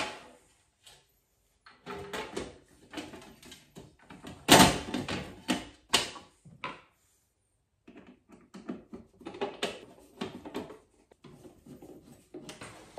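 Plastic knocks, clicks and clatter as the white plastic cover panels of a consumer unit are handled and pushed into place, with the loudest knock about four and a half seconds in.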